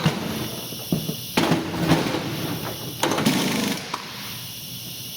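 Impact gun hammering in several short bursts, as it runs a nut on an aircraft wheel's axle, with a few sharp metallic clicks between the bursts.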